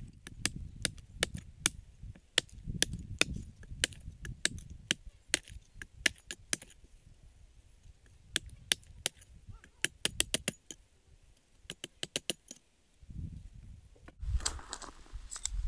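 Small hatchet chopping at the end of a wooden stick: a run of sharp, irregular strikes, a few a second, which stop about twelve seconds in.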